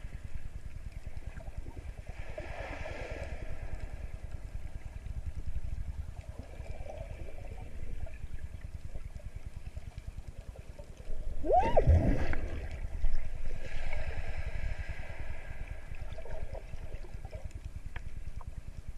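Underwater sound of a GoPro in its housing: a steady low rumble with gurgling water moving past the camera. About eleven seconds in comes a sudden louder burst with a short cry that rises and falls in pitch: the swimmer's startled yelp.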